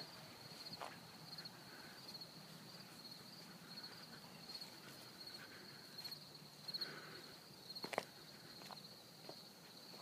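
Crickets chirping steadily in a fast, even pulse, with a few footsteps and a sharp click about eight seconds in.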